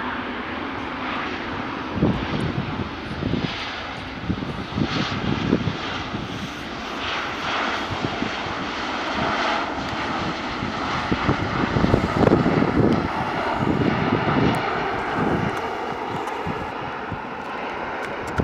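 Jet airliner engines running as airliners roll along a runway: a steady roar with a faint whine that swells towards the middle. Irregular gusts of wind buffet the microphone.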